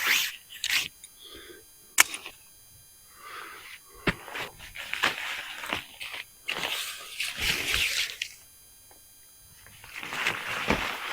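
Nylon tent fabric and poles being handled during pitching: bursts of rustling with a couple of sharp clicks.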